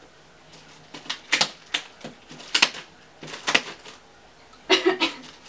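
Irregular sharp crackles and rustles of plastic wrapping being handled as a doll box is unwrapped and opened, the loudest cluster near the end.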